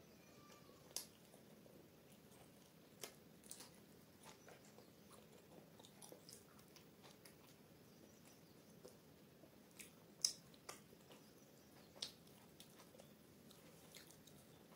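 Close-miked chewing with the mouth closed: soft wet mouth clicks and smacks at irregular intervals, a few of them sharper and louder, over a faint hiss.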